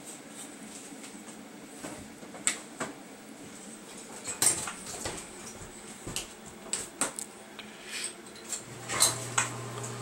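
Dishes and cooking utensils clinking and knocking, a dozen or so sharp clinks at irregular intervals. A low steady hum starts near the end.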